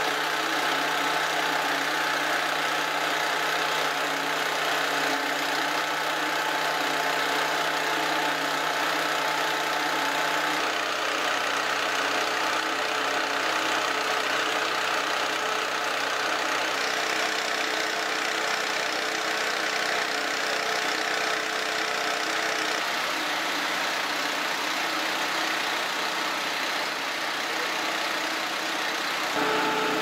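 Fire engines' diesel engines idling steadily, a constant mechanical drone with a steady hum whose pitch shifts abruptly twice.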